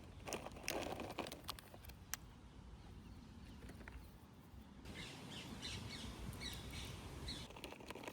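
A few sharp clicks and rustling of handling in the first two seconds, then small birds chirping in quick repeated calls from about five seconds in.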